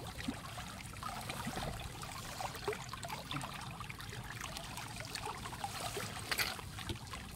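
Floodwater flowing and trickling through a bag-net fish trap set in a field channel, with small splashes and crackles as the wet mesh is handled; a short louder splash about six seconds in.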